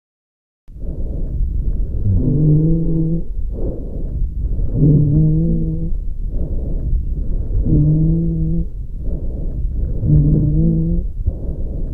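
Breath sounds through a stethoscope: after a short silence, about four breaths roughly two and a half seconds apart, each carrying a low-pitched musical wheeze over the breath noise.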